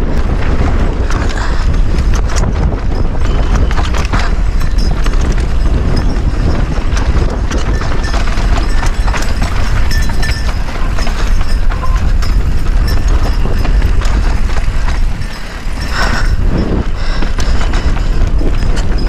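Mountain bike descending a rocky trail, heard from a GoPro on the rider: a dense, loud rattle and clatter of tyres, wheels and frame knocking over rock, over a heavy low wind rumble on the microphone, easing briefly about fifteen seconds in.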